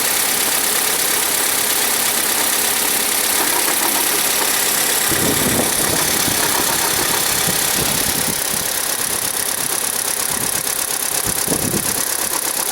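Engine idling steadily with an extraneous noise from around the power steering pump drive gear: a fast, fine ticking over the running sound. A few low thumps come partway through.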